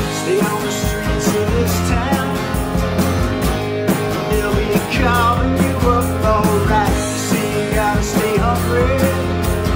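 Rock band playing: electric guitars, electric bass and a drum kit keeping a steady beat, with a male lead vocal over it.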